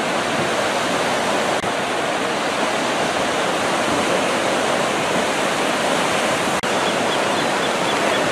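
Small ocean waves breaking and washing up a sandy beach: a steady, even rush of surf.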